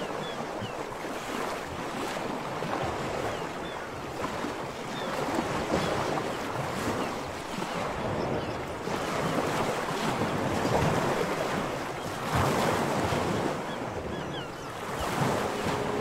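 Surf washing on a shore: a steady rushing noise that swells and eases every few seconds, with wind, and a few faint short high chirps.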